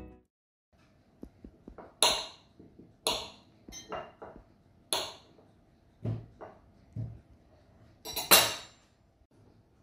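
Short knocks and clinks of a table knife against a ceramic butter dish and a glass jug as softened butter is cut and put in. There are about eight separate strokes, with a longer, louder clatter near the end.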